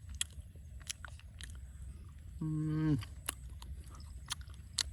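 Someone chewing and crunching food, a string of small sharp crunches, with a short low hum of about half a second midway that drops in pitch as it ends.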